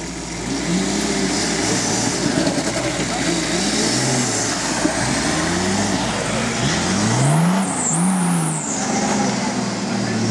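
Off-road 4x4 pickup's engine revving up and down again and again under load as it claws its way out of a deep rut.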